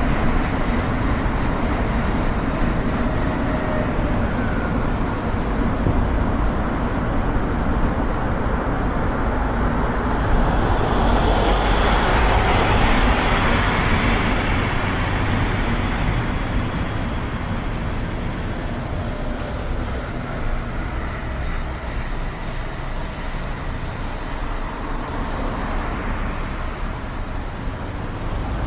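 Steady road and traffic noise of a car driving through city streets, a continuous rumble of tyres and engines. It swells louder and brighter for a few seconds near the middle, then settles back.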